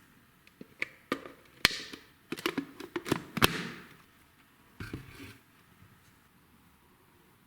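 A toy surprise egg being handled and opened: a run of sharp plastic clicks and snaps with short crackling of its wrapper, from about half a second in until just past five seconds, the loudest snaps near two seconds and three and a half seconds in.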